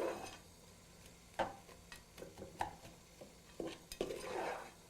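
Spoon stirring vegetables in a cooking pot, knocking against the pot in a few separate sharp clinks.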